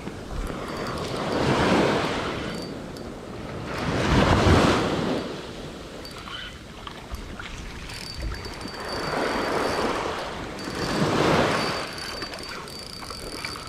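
Small waves washing up onto a sandy beach and draining back, surging about four times as each one breaks at the shoreline.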